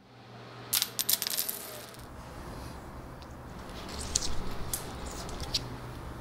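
Coins dropping and clinking on a ceramic tile floor: a quick cluster of bright metallic clicks about a second in, then scattered clinks a few seconds later as a hand reaches across the tiles. A low steady hum sits underneath.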